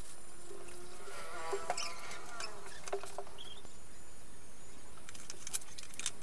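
Soft taps and rustles on a plastic sheet as small dabs of wet urad dal batter are pinched onto it by hand, over a steady hiss. A few sharper clicks come near the end.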